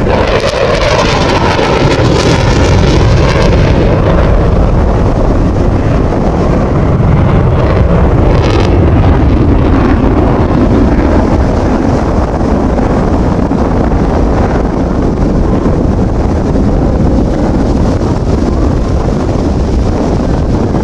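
Eurofighter Typhoon's twin Eurojet EJ200 turbofans running in afterburner: a loud jet roar, harsh with a rippling sweep for the first few seconds, then settling into a deep steady rumble as the jet pulls away.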